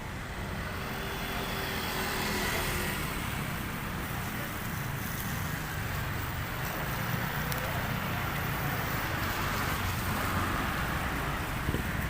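Street traffic: a steady wash of road noise from passing vehicles.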